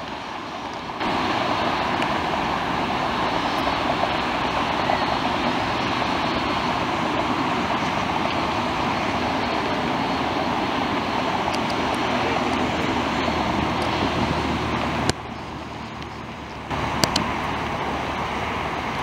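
Steady jet engine noise from a taxiing Emirates Airbus A380, mixed with general airport and road traffic noise. The noise drops briefly twice, in the first second and about fifteen seconds in, with a click at each change.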